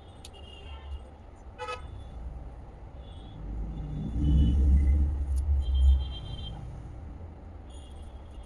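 Street traffic noise: a short horn toot about two seconds in, then a low vehicle engine rumble that swells to its loudest in the middle and fades.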